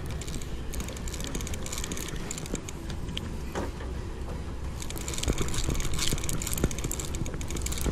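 Shimano TLD 25 lever-drag trolling reel being worked by hand, its mechanism giving a rapid clicking that comes and goes, heaviest in the second half, over a steady low rumble.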